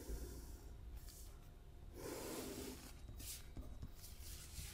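Faint scratching of a pen drawing straight lines on paper.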